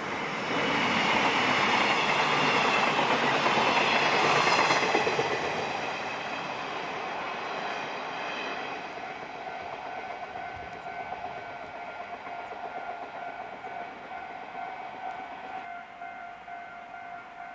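A train passing over a level crossing, loud for the first few seconds and then fading away. About eight seconds in a steady tone takes over.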